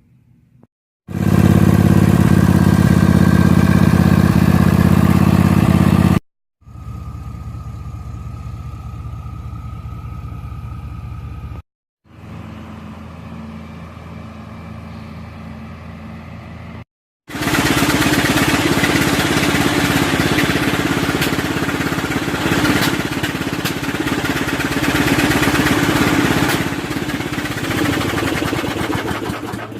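Electric sander running steadily while sanding, in four separate stretches cut apart by short breaks. The first and last stretches are the loudest, and the last has a rough, scratchy sanding noise over the motor hum.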